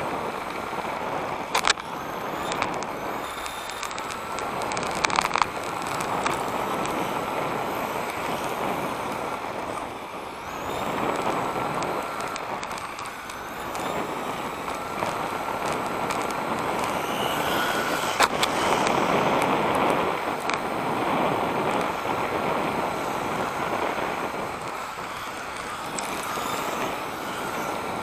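Onboard sound of a 1/10 electric RC touring car (Tamiya TA06 with a 21.5T brushless motor) running on asphalt. Tyre and drivetrain noise rushes, swelling and easing as it speeds up and slows through the corners, under a faint high motor whine. A few sharp clicks come from bumps and knocks, about two seconds in, around five seconds and near eighteen seconds.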